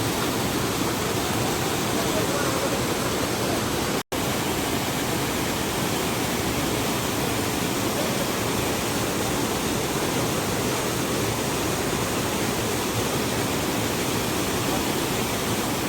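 Steady rush of water from a large waterfall, with a sudden, very brief dropout about four seconds in.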